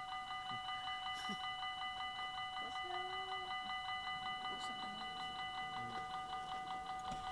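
Belgian level crossing's electronic warning bell ringing rapidly and evenly without a break, sounding the alarm that a train is due while the red lights flash and the barrier comes down.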